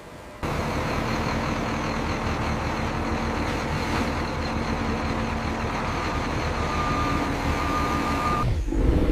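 Heavy deck machinery, a winch or crane motor, starts abruptly and runs steadily while lowering gear over the side. A thin high whine joins near the end, and then a louder low rumble.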